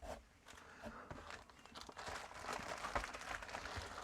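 Plastic packaging rustling and crinkling, with irregular small clicks and taps, as parts are handled and unwrapped; the rustling gets busier about halfway through.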